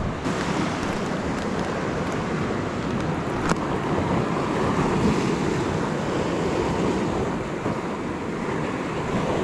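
Ocean surf washing against a coastal rock shelf, a steady rushing noise, with wind buffeting the microphone. A single short click about three and a half seconds in.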